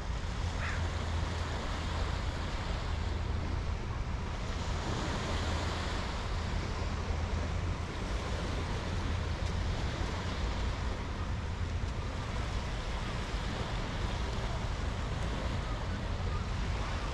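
Wind rumbling on the microphone over a steady outdoor wash of noise that swells for a few seconds about four to five seconds in.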